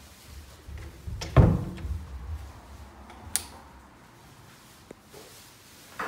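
A door being handled: one loud thud about a second and a half in, a sharp click about two seconds later, and a smaller knock near the end.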